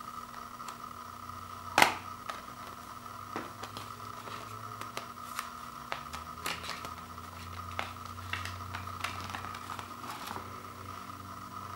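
Plastic Blu-ray case snapping open with one sharp click about two seconds in, then light plastic clicks and paper rustling as the digital-code insert is worked out from under the case's clips.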